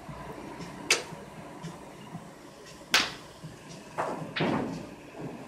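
Sharp clacks of pool balls striking: two loud ones about two seconds apart, then softer knocks near the end.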